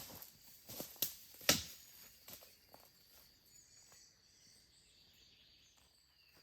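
A handful of short knocks and crackles, the loudest about one and a half seconds in, over faint outdoor background with a steady high hiss; from about three seconds in only the background is left.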